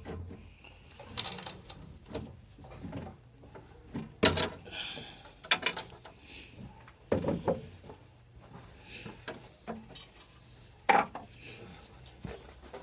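Small hard objects being handled and set down: irregular clicks, knocks and clatters, with the loudest knocks about four, seven and eleven seconds in.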